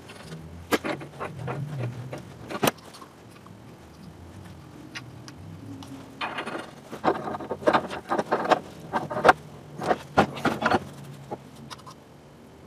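Black steel pipe fittings and hand tools clinking and knocking against metal as the fittings are handled and threaded together at a bench vise. A few sharp clicks come first, then a busier run of clatter in the second half that stops near the end.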